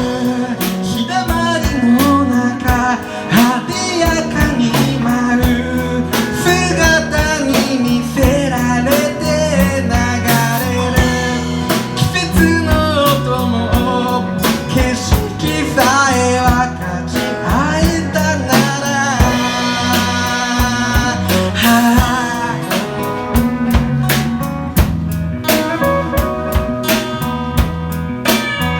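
Acoustic band music in an instrumental break between sung lines: a guitar-led melody with bending, sliding notes over strummed acoustic guitar and a steady drum beat.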